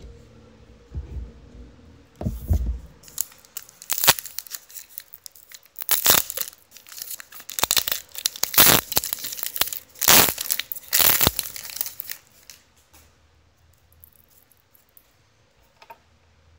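A basketball trading-card pack wrapper being torn open and crinkled by hand, in a run of loud tearing and crinkling bursts over several seconds that stop about two-thirds of the way through, followed by quieter handling of the cards.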